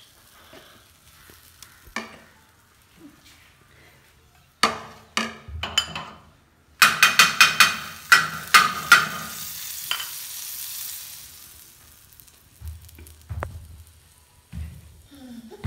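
A plastic ladle clicks and knocks sharply against a bowl and pan as pancake batter is stirred and ladled out, with a fast run of about eight knocks in two seconds. A high sizzle follows as the batter hits the hot tawa, then fades.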